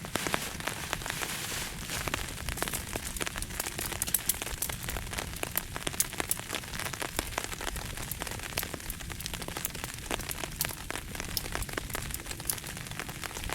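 Rain falling steadily, with many sharp, irregular drop taps.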